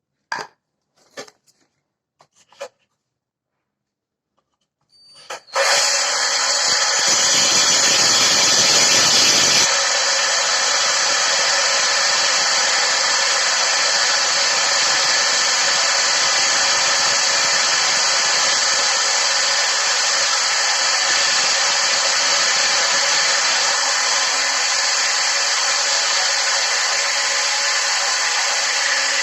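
A few short knocks, then about five seconds in an electric drill fitted with a hole saw starts and runs steadily, cutting, for the rest of the time.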